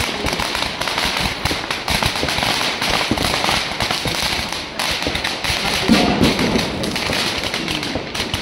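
Firecrackers crackling in a rapid, continuous string of small bangs, with a louder low burst about six seconds in.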